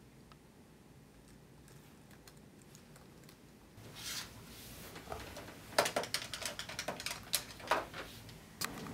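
An office desk phone being dialled: a soft handling click about four seconds in, then a quick run of about a dozen short keypad button clicks.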